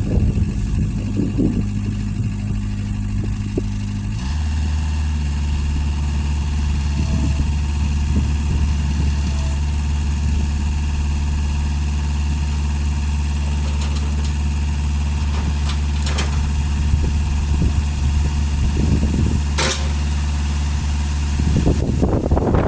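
An engine running steadily at idle. About four seconds in, its note drops to a lower, steady pitch and holds there, with a couple of light clicks later on.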